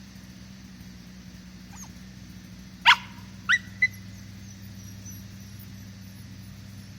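A dog barking three times in quick succession, short high yelps, the first the loudest, over a steady low hum.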